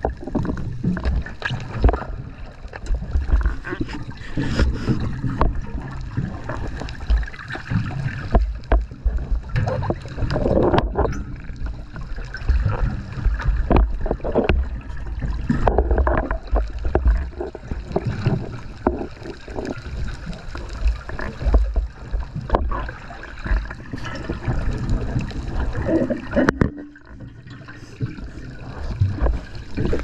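Underwater scuba-dive sound: exhaled regulator bubbles gurgling in irregular surges every few seconds, over a steady low rumble of water.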